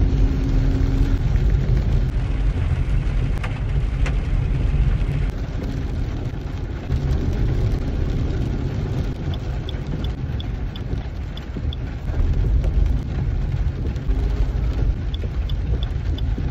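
Car driving in heavy rain on a wet road, heard from inside the cabin: a steady low rumble of engine and road noise. A turn-signal indicator ticks about two to three times a second, for a few seconds past the middle and again near the end as the car turns.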